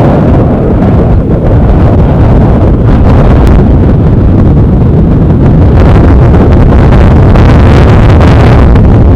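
Strong wind buffeting the microphone: a loud, dense rumble with no steady tone.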